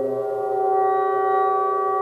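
Several Tibetan singing bowls ringing together, a chord of sustained overlapping tones, with a higher tone joining and the sound swelling slightly about a second in.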